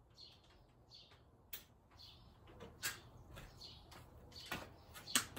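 A few sharp metallic clicks and taps of hand tools and a socket being handled, with faint bird chirps in the background.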